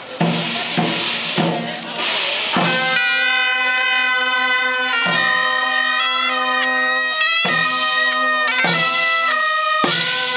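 Korean traditional military procession band (daechwita): steady drum beats with cymbal crashes, then about two and a half seconds in, loud reedy taepyeongso shawms come in playing a held, wavering melody over a sustained lower note, with the drum continuing.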